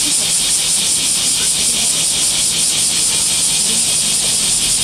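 Loud chorus of cicadas: a steady high-pitched buzz that pulses several times a second.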